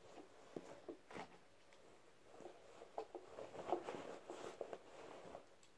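Faint rustling with scattered light clicks and taps of small objects being handled.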